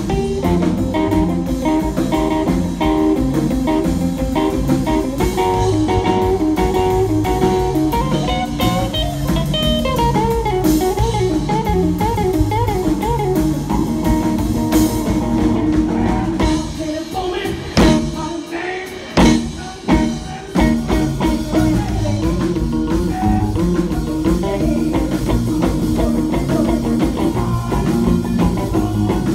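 Live blues band: a semi-hollow electric guitar plays lead with bent notes over electric bass and drum kit. About two-thirds of the way through, the band drops out, leaving a few short sharp hits, then comes back in, and a woman's singing voice returns near the end.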